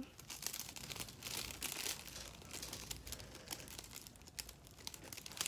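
Metallic foil fringe crinkling and rustling as it is handled, with many small irregular crackles.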